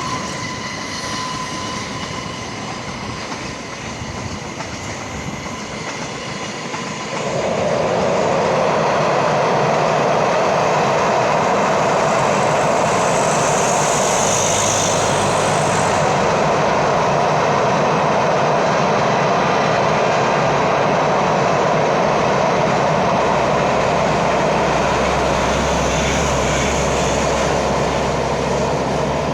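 Train passing close by: a moderate rumble that gets suddenly louder about seven seconds in and stays loud and steady, with brief high-pitched squeals about halfway and again near the end.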